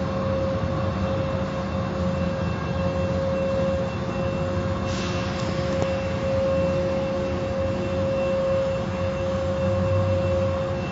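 Automatic car wash machinery running: a steady mechanical drone with a constant whine, and a short burst of hiss about five seconds in.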